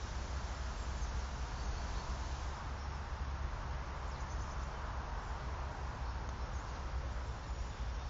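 Steady outdoor background noise: a constant low rumble with an even hiss over it, without clear knocks or voices.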